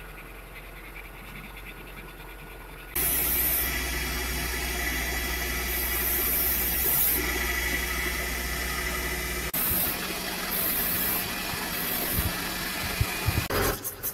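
A machine running steadily, a low hum with hiss, that comes on suddenly about three seconds in and turns rougher and more uneven about ten seconds in.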